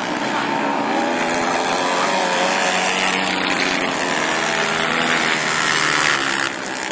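Several racing ATV (quad) engines running hard on a dirt flat track, their pitches rising and falling as they rev. The sound is loudest shortly before the end, then drops suddenly.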